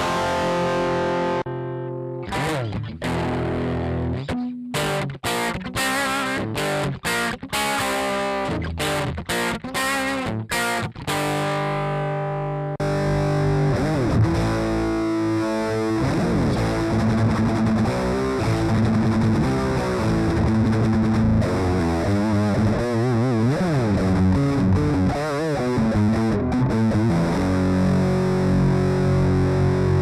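Stratocaster-style electric guitar played through a Zoom GFX-8 multi-effects unit with a distorted tone. For about the first thirteen seconds it plays short choppy chords with gaps between them. Then the sound switches abruptly to a fuller, brighter, sustained tone with wavering, bending notes.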